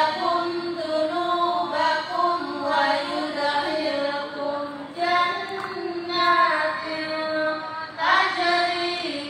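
Women chanting a melodic Qur'an recitation into a microphone, in long held phrases with short breaks about five and eight seconds in.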